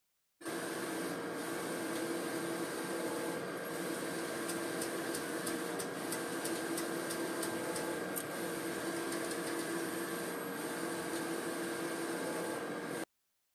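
Large-format vinyl printer running steadily as printed decal vinyl feeds through: an even mechanical hum and whirr with light clicking in the middle stretch. It starts suddenly and cuts off abruptly.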